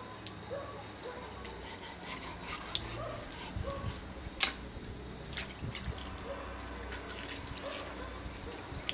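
A thin stream of water from a tap trickling into a stone sink, with scattered short wet clicks and knocks from the fish being gutted under it, the sharpest about halfway through.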